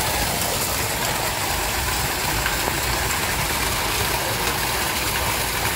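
Heavy rain falling steadily, with a stream of runoff pouring off the roof onto the courtyard floor.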